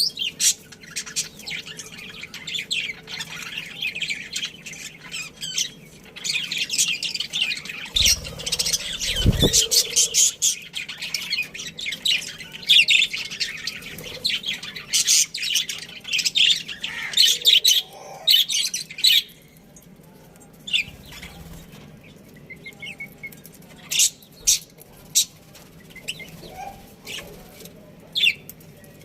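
A flock of budgerigars chirping and chattering, dense and busy for the first two-thirds, then thinning to scattered chirps. A brief low rumble sounds about eight seconds in.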